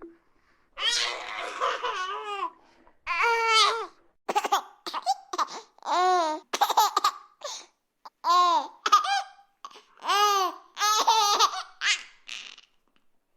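A baby laughing: first a longer breathy laugh, then runs of short, high giggles that bend up and down in pitch, with brief pauses between them.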